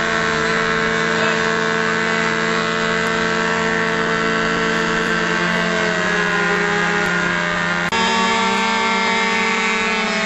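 Several RC combat planes' small engines running at high, steady speed at once, their buzzing notes overlapping, with a brief break about eight seconds in.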